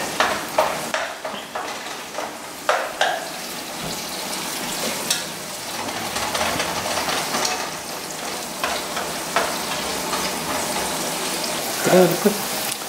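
Diced celery sizzling in oil in a nonstick skillet, stirred with a wooden spatula that knocks and scrapes against the pan now and then.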